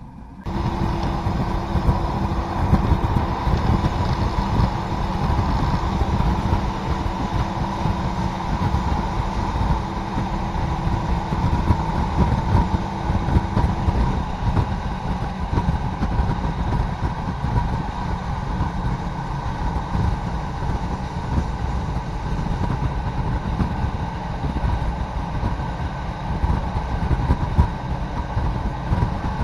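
ALn 668 diesel railcar running along the line: a steady, loud rumble of its engine and wheels on the rails, starting abruptly about half a second in.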